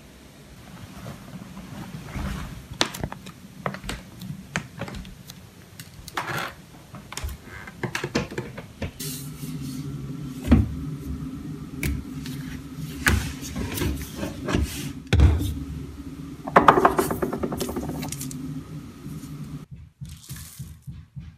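Plastic bottles and other small objects being handled in a bathroom cabinet, giving irregular clicks and knocks. A steady low hum sits under the second half and cuts off near the end.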